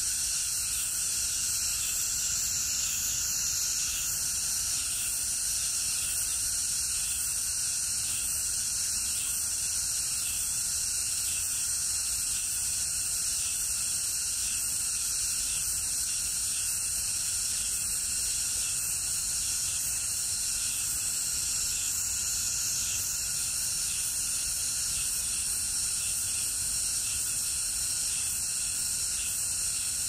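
A steady, high-pitched insect chorus with several layered bands of shrill buzzing, going on without a break.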